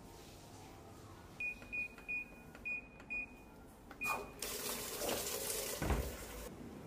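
Panasonic top-loading washing machine's control panel beeping six times as its buttons are pressed, then a couple of seconds of rushing water as the machine begins to fill, ending abruptly.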